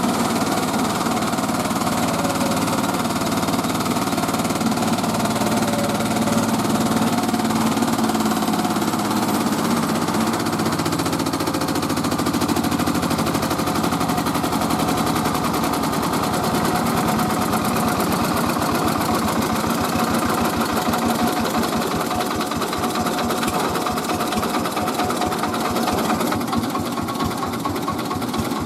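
Engine of a mobile rice-milling machine running steadily, with a fast, even knocking beat.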